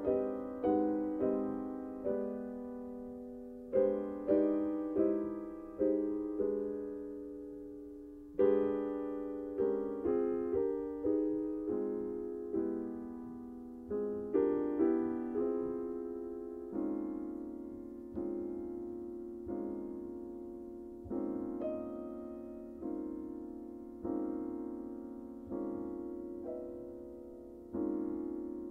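Solo piano playing a slow ballad: chords and single notes struck one after another and left to ring and fade, getting softer in the second half.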